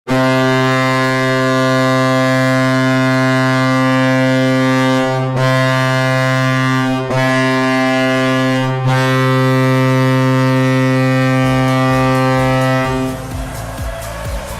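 Colorado Avalanche hockey goal horn blowing one long, low, steady note for about thirteen seconds, dipping briefly three times along the way. It then gives way to music with a beat near the end.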